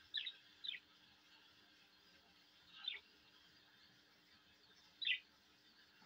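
Budgerigars chirping: four brief, sharp calls, two close together at the start, one about three seconds in and one near the end.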